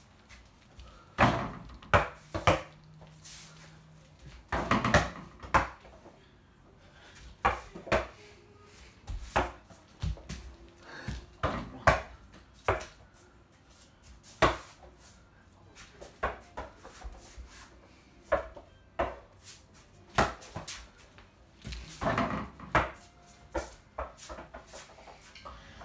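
A small ball knocking and bouncing against the floor, the door and the door-mounted mini basketball hoop, a string of irregular sharp thumps.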